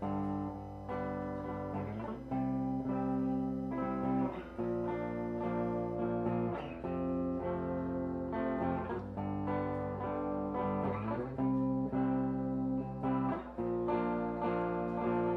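Electric guitars playing live through amplifiers, strumming a repeating chord pattern that changes about every two seconds.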